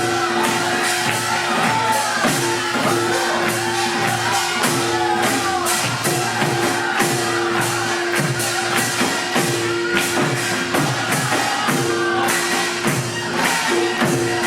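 Traditional Korean percussion music accompanying deotbaegi dance, with rapid, dense strikes over a steady, sustained ringing tone and wavering voice-like lines above it.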